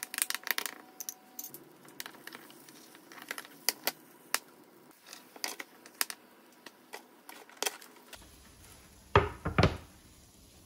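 A metal utensil clicking and scraping against a small frying pan while an egg and beef-mince mixture is stirred, a scattered series of sharp clicks. Two louder knocks come a little after nine seconds.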